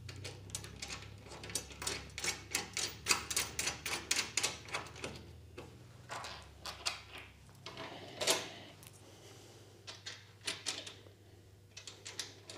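Quick, irregular small clicks and taps of bolts, washers and nuts being handled and threaded by hand onto a CNC table's mounting bracket. The clicks come in runs: thick at first, sparse in the middle and picking up again near the end.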